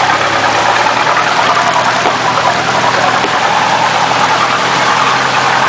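Boat engine running steadily under way, with water rushing and churning along the hull.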